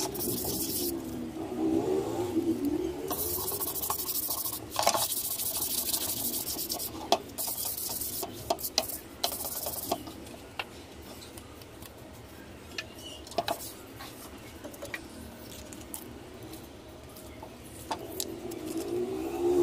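Cloth pad rubbing wood polish along a wooden plank: a hissing scrape in several spells of strokes during the first half, then quieter, with scattered light taps and knocks.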